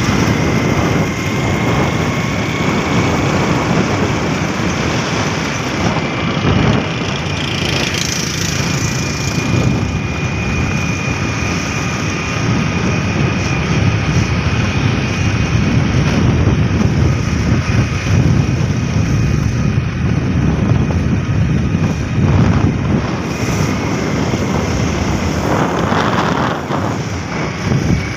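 A moving road vehicle's engine running steadily with wind rush, heard from on board, with a faint steady whine throughout.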